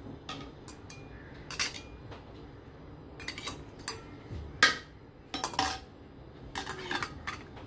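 Tongs clinking and scraping against a small steel bowl that holds a lump of charcoal on top of the rice in a cooking pot. It makes a dozen or so short, sharp metal clinks, irregularly spaced and grouped in small clusters.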